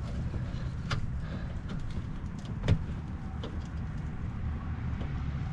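A few light plastic clicks and knocks as a headlight bulb is wiggled loose in its housing, the loudest about two and a half seconds in. A steady low rumble runs underneath.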